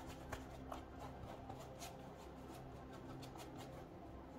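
Paintbrush scrubbing acrylic paint onto a canvas: faint, repeated scratchy bristle strokes, a few a second, coming in uneven runs.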